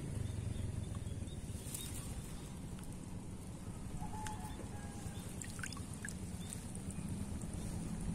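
Faint outdoor background: a low rumble, a few soft clicks, and a short, faint bird call about four seconds in.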